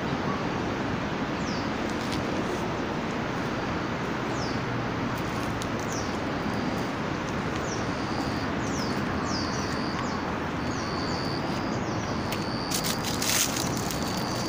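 Outdoor park ambience: a steady background hiss with small birds repeatedly giving short, high, falling chirps, and a brief cluster of clicks near the end.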